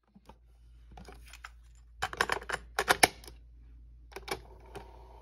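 Piano-key transport buttons of a Sears cassette tape recorder clicking and clacking as they are worked, with a dense run of loud clacks about two to three seconds in and a few more near the end, over a low steady hum.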